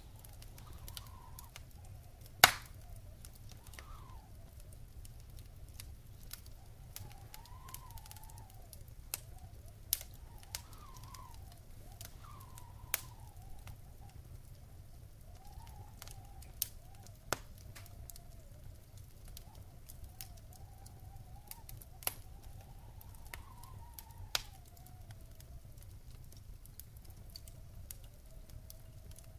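Wood fire in a fireplace crackling, with scattered sharp pops over a low rumble; the loudest pop comes about two and a half seconds in. A faint wavering whistle-like tone rises and falls throughout.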